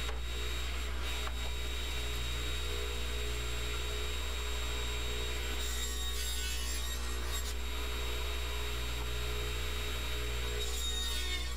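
Table saw motor running with a steady hum while its blade cuts through boards on a crosscut sled, with a hiss of the cut about six seconds in and again near the end.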